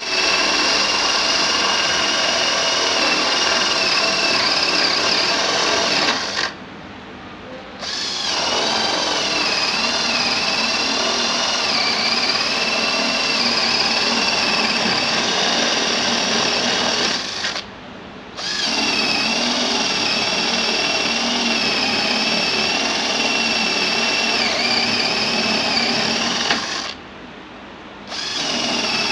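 Worcraft CD-20LiP 20-volt cordless drill boring into a wooden plank with a spade bit; its motor whine wavers in pitch as the load changes. It stops three times for about a second, roughly a quarter, two-thirds and nine-tenths of the way through, between holes, then runs again.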